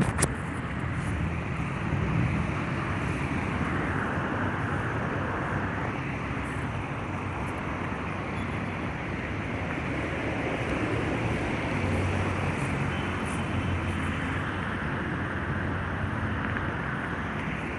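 Steady road traffic noise, passing cars swelling and fading now and then.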